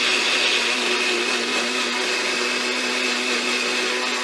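Personal bullet-style blender motor running with a steady whine, pureeing blanched spinach, ginger, garlic, green chili and water into a fine paste.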